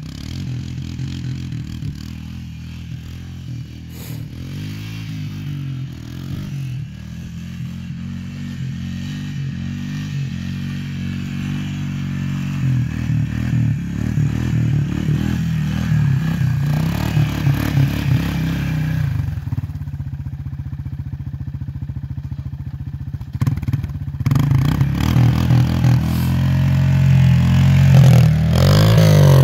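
Lifted Honda 300 ATV's single-cylinder four-stroke engine revving up and down as the quad spins donuts on snow. It eases off about twenty seconds in, then revs hard again from about twenty-four seconds.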